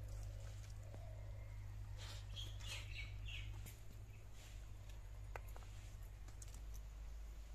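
Faint bird chirps for about a second and a half, a couple of seconds in, over a steady low hum, with a few soft clicks later on.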